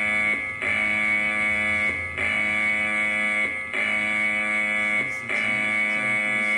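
Harsh buzzing emergency-alert alarm tone, sounding in repeated pulses about a second and a half long with short breaks between them.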